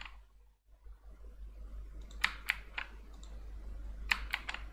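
Two short runs of computer mouse and keyboard clicks, about two seconds in and again near the end, over a low steady hum.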